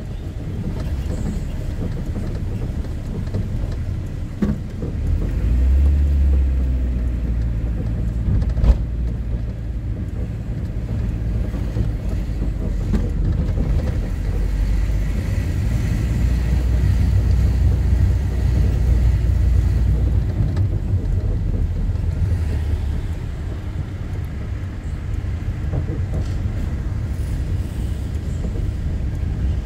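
Car engine and road noise heard from inside the cabin while driving: a steady low rumble that swells louder about six seconds in and again through the middle, with a single sharp click about nine seconds in.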